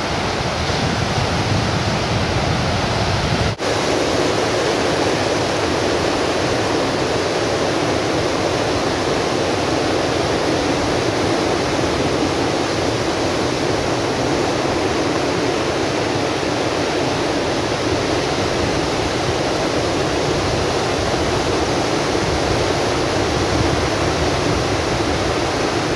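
Ocean surf breaking on a rocky shore: a loud, steady rush of waves, with a brief break about three and a half seconds in.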